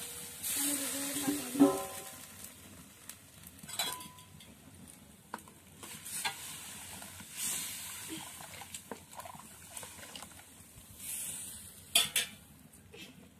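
Cooking in an iron kadhai: a light sizzle with a metal ladle stirring and clinking against the pan now and then, and two sharp clinks near the end.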